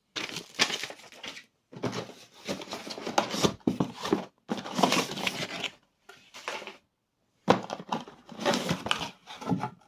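Paper and packaging crinkling and rustling as intercom kit parts and instruction sheets are handled, in irregular bursts with short pauses.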